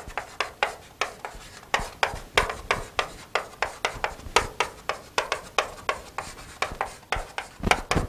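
Chalk writing on a chalkboard: a quick, uneven run of short scratches and taps, several a second, as the letters are drawn.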